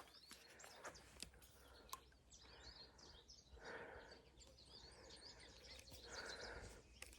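Near silence, with faint chirping of small birds and a few soft clicks.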